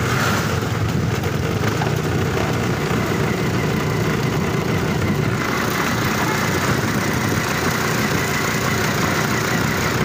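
Motorcycle engine running steadily while riding, under a dense, even rush of road and air noise.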